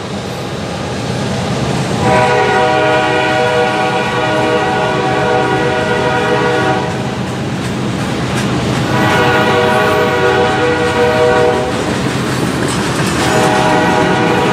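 A freight train's locomotive air horn sounds three long blasts: one of about five seconds beginning about two seconds in, a shorter one a little later, and a third starting near the end. Under them runs the steady rumble and clatter of covered hopper cars rolling past on the rails.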